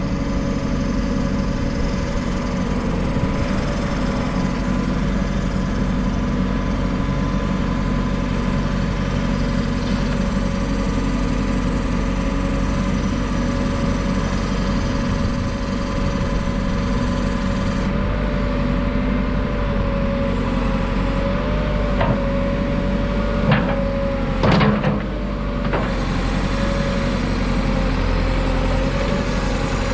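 JCB 4CX backhoe loader's diesel engine running steadily, with a few sharp metallic knocks or clunks about three-quarters of the way through.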